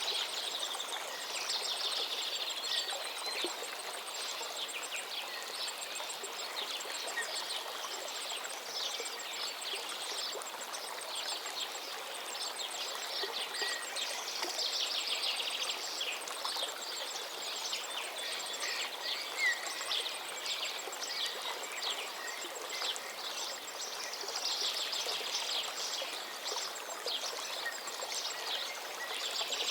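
Steady rush of water from a large waterfall, with a dense, high-pitched chirping that swells and fades several times.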